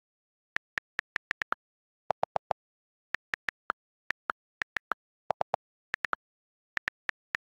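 iPhone on-screen keyboard clicks as a search is typed: about thirty quick key taps in irregular runs, starting about half a second in. Twice a quick run of four clicks sounds deeper than the rest.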